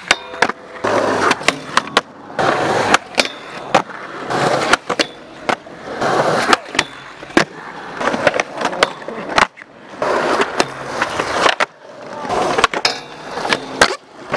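Skateboard wheels rolling on concrete, broken by many sharp cracks of tail pops and board landings, with trucks grinding along a metal handrail.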